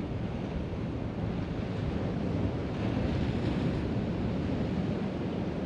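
Sea waves washing against a rocky shore, with wind buffeting the microphone in a steady low rumble.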